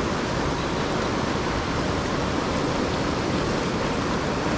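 River water rushing over shallow rocky riffles: a steady, even rush.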